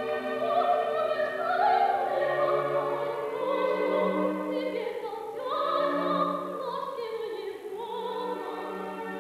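A woman singing opera with vibrato, accompanied by a live orchestra.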